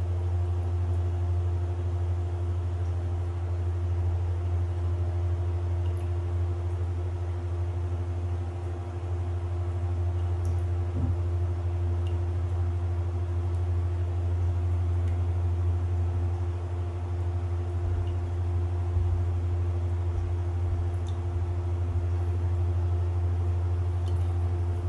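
A steady low hum with a few constant tones over it, unchanging throughout, with one faint knock about eleven seconds in.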